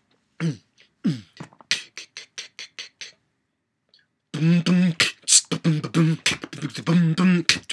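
A man beatboxing: quick mouth clicks and pops mixed with short hummed pitched beats. It stops for about a second midway, then comes back as a denser, steady rhythm.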